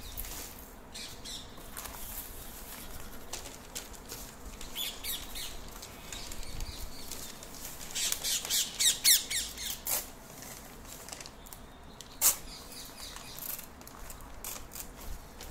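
Sheets of red colour paper rustling and crinkling as they are handled and unfolded, loudest in a run of crinkles in the middle, with one sharp snap of the paper a little later.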